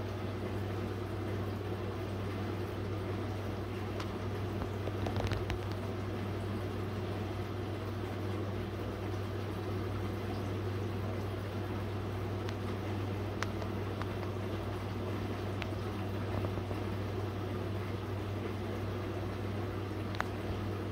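Small aquarium filter running: a steady low hum with water bubbling and trickling, and a few faint clicks.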